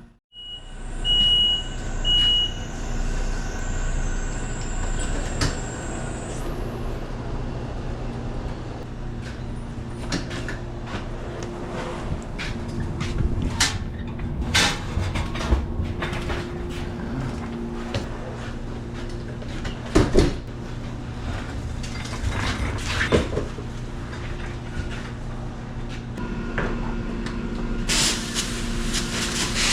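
Working bakery kitchen: a steady machine hum from the ovens and equipment, with scattered clatter and knocks of trays and boards being handled. A few short high beeps sound about a second in.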